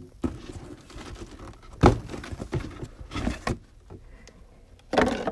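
Packing tape being torn off a cardboard shipping box and its flaps pulled open: a few short, rough tearing and scraping bursts, the loudest about two seconds in.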